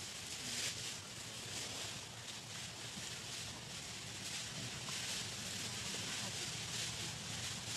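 Steady outdoor background noise: an even hiss with a low hum underneath, with no distinct event standing out.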